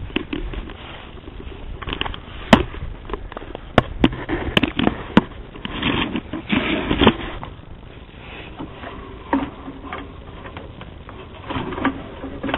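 Handling noise from a handheld camera: scraping and rustling against the microphone, with several sharp clicks between about two and five seconds in and a louder stretch of rubbing a little after that.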